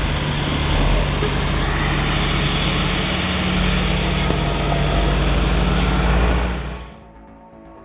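Heavy diesel engine running steadily, fading out about seven seconds in.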